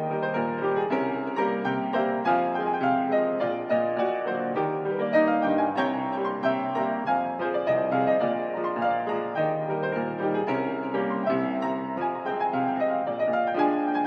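Solo grand piano playing a pasodoble, with melody and chords moving continuously at an even level.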